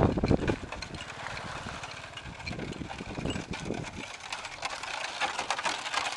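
Wooden oxcart rattling and clattering as it rolls past on a dirt road. The clatter grows denser and louder near the end as the spoked wheels come close. A brief rush of noise fades out at the very start.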